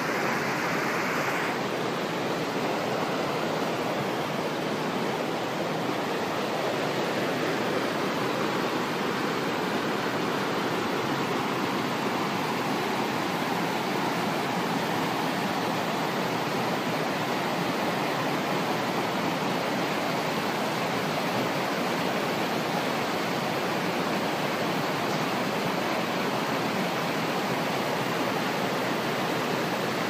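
Urlătoarea waterfall and its mountain stream rushing down over rocks: a steady, unbroken rush of falling water.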